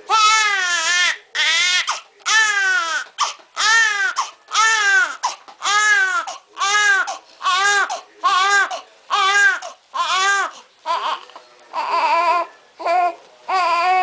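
Newborn baby crying in a steady string of short wails, about one a second, each rising then falling in pitch.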